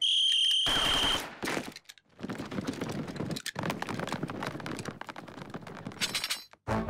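Cartoon sound effects: a high whistle-like tone for about a second, then a rapid, continuous string of bangs like machine-gun fire lasting about four seconds.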